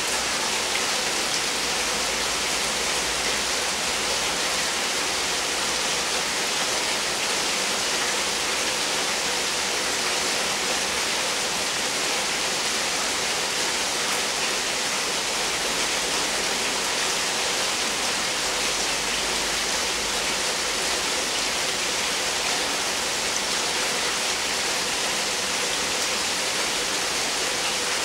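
Rain falling steadily in a thunderstorm downpour, a constant, even hiss.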